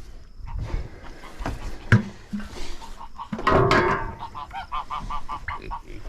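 Farm poultry calling: a loud harsh call about three and a half seconds in, then a quick run of short honking notes, about four a second.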